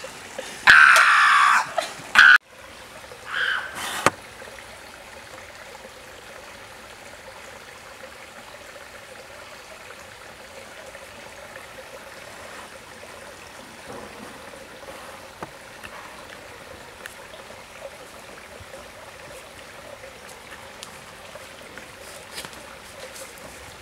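A person's voice, loud, for about the first two seconds, then cut off abruptly, leaving the steady trickle of a running stream.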